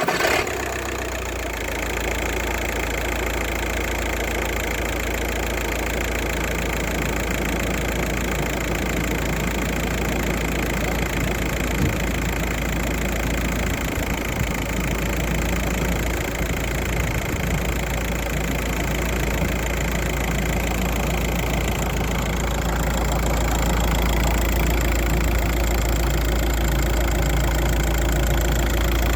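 Volkswagen Passat B5.5's 1.9 TDI four-cylinder pumpe-düse diesel engine, just started, idling steadily, with a little more volume from about 22 seconds in. The engine is warming up with Liqui Moly Engine Flush Plus circulating in the old oil before the oil change.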